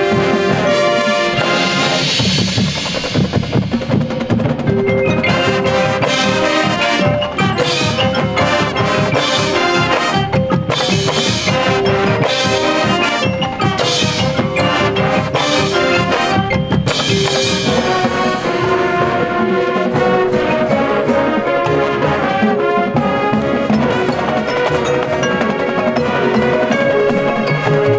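High school marching band playing its field show: brass over drumline and front-ensemble mallet percussion such as marimbas, with a run of sharp percussion hits through the middle.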